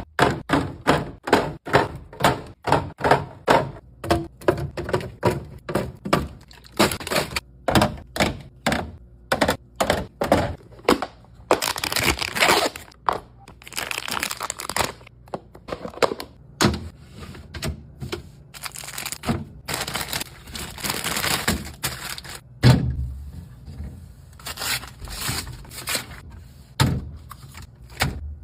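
Items being handled while a refrigerator is organised: a quick string of knocks and clacks, then longer stretches of crinkling and rustling like plastic packaging, with more scattered knocks near the end.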